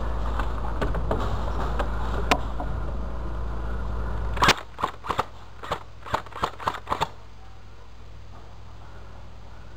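Airsoft gun firing about ten quick shots in a row, each a sharp snap, over roughly two and a half seconds. Before the shots, a steady low rumble with a few faint clicks; the rumble stops when the shooting begins, about four and a half seconds in.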